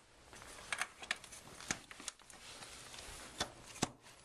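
Kayak frame hardware being handled and fitted: about five sharp clicks with light scraping and rustling as T-bolts are pushed through the cross frames and turned into place.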